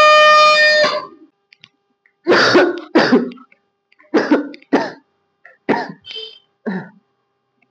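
A plastic toy horn blown in one loud, steady note that cuts off about a second in, followed by a run of about seven short coughs and throat-clearings.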